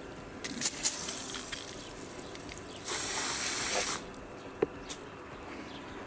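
Garden hose spray nozzle being worked and shut off: a couple of clicks, a hiss of spraying water, then a loud spray for about a second that cuts off suddenly about four seconds in, followed by two faint clicks.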